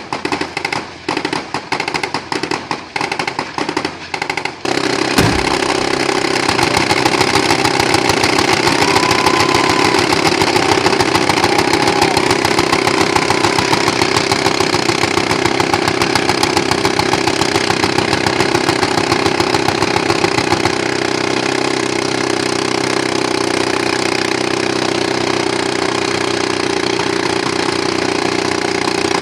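Gunshots fired in quick succession for the first few seconds. Then an M134 (GAU-17) minigun fires one long continuous burst to the end, its shots so fast they merge into a steady, loud buzz.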